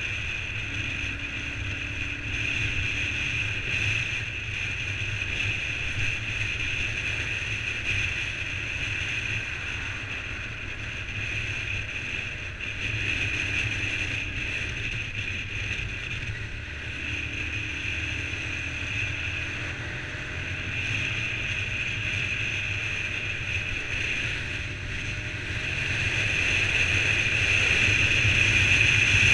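Honda CBR125 single-cylinder motorcycle riding along a road: engine running at cruise under steady wind rush on the bike-mounted camera's microphone, getting louder over the last few seconds.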